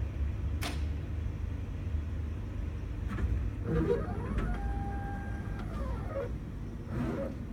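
Drink vending machine's product elevator motor running during a bottle vend: a whine that rises in pitch as the motor speeds up, holds steady for about a second, then falls as it slows, with a sharp click near the start and a low hum throughout.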